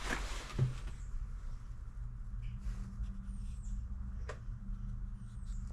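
A faint, steady low electrical hum, with a few light clicks and a couple of brief high chirps.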